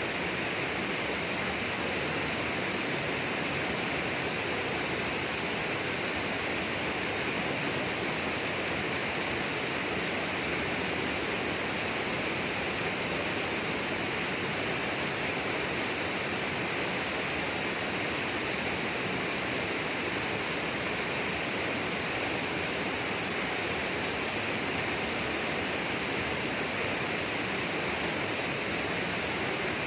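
Tropical rainforest ambience: a steady, unchanging rush like flowing water.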